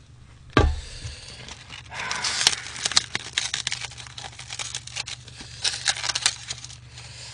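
A bowl set down on the table with a thump about half a second in, then plastic cling wrap crinkling and tearing as it is peeled off takeout side-dish containers.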